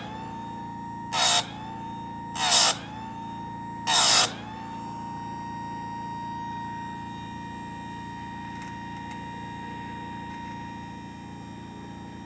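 Harbor Freight electric chainsaw-chain grinder running with a steady whine. Three brief grinding rasps in the first four seconds are the wheel being touched to the chain's cutters, and the motor's whine dips and recovers after each one. After that the grinder runs on alone.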